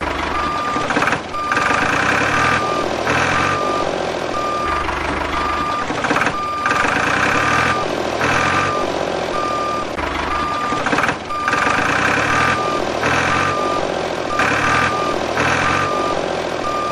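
Truck reversing sound: a regular series of short reversing beeps at one pitch over a steady engine rumble.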